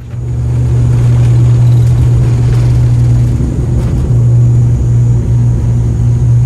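Airliner engines droning loud and steady, heard from inside the passenger cabin as a deep, even hum.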